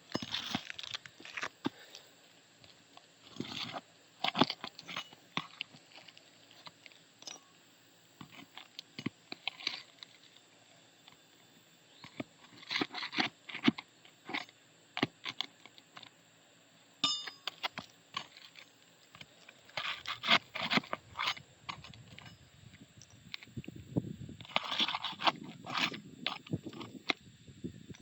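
Asphalt roof shingles crunching and scraping in irregular clusters of short crackles, every second or two with quiet gaps between.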